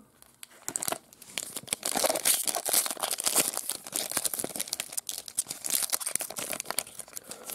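Shiny foil wrapper of a 2021 Panini Mosaic baseball card pack being torn open and crinkled by hand: a dense, continuous crackling rustle that starts about a second in.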